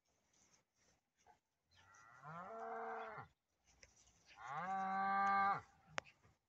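Polish White-backed cattle mooing: two long moos about a second apart, each rising at the start, held level, then dropping away, the second louder. A single sharp click follows shortly after the second moo.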